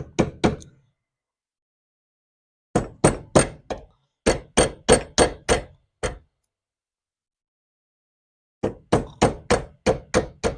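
Hammer blows driving a roll pin out of a vent window knob, in four runs of quick strikes about three a second with short silent pauses between, each strike with a sharp ring.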